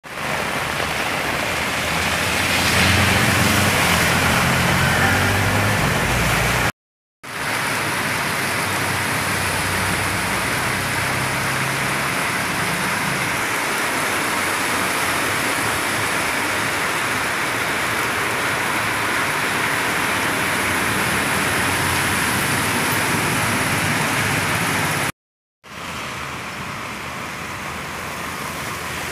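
Heavy rain falling steadily while motor vehicles drive through flood water on the road, with engine sounds strongest a few seconds in. The sound drops out briefly twice, at edits.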